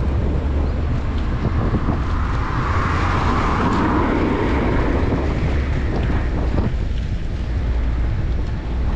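Wind buffeting the microphone of a camera on a moving bicycle, a steady low rumble, with road traffic going by; a vehicle passes, louder, about three to five seconds in.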